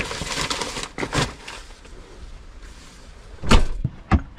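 A paper bag rustling and crinkling as it is handled, then after a quieter stretch two loud thumps about half a second apart near the end, the first the loudest.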